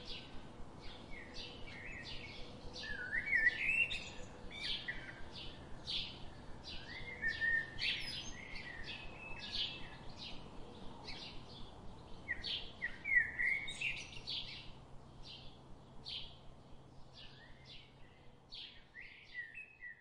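Small birds chirping and calling, many short notes and quick trills each second, over a faint steady hum.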